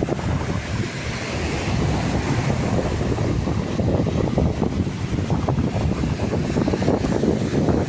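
Sea waves washing onto a beach, with wind buffeting the microphone throughout; a wave swells about a second in.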